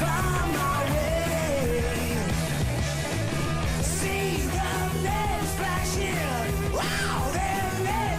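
Loud rock song playing, a singer's sliding vocal lines over steady bass and drums.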